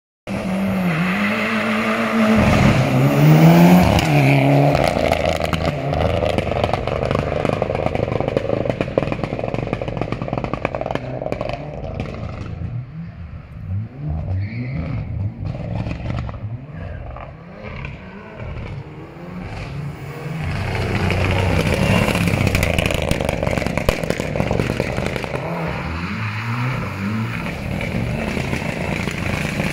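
Mitsubishi Lancer Evolution Group N rally car's turbocharged four-cylinder engine being revved while the car is held for a launch-control start. In the middle the note turns broken and stuttering with sharp crackles, as it is held on the launch-control limiter, then it steadies back into revving.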